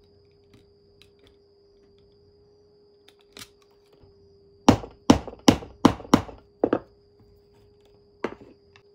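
A hammer striking a metal leatherworking punch held on leather over a hard slab: a quick run of about six sharp knocks a little under halfway through, then one more knock near the end.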